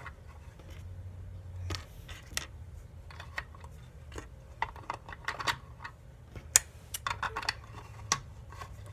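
Small plastic parts clicking and tapping as they are handled and fitted onto a pink plastic tape-cutter gadget, with scattered light clicks and a sharper click about two-thirds of the way in.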